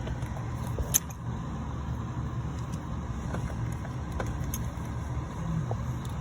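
Light metallic clinks of a socket on an extension and wobble joint knocking against engine parts as it is worked down onto an oil pressure sensor, with one sharper clink about a second in, over a steady low hum.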